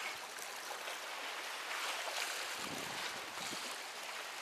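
Sea water washing and splashing among breakwater tetrapods and rocks, a steady hiss of small waves.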